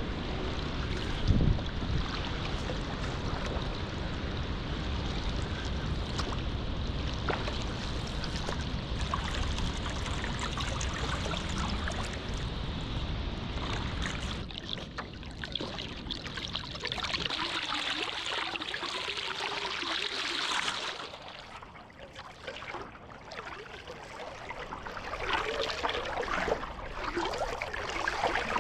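Water splashing and trickling from a stand-up paddle board's paddle strokes, with wind rumbling on the microphone for the first half before it eases off.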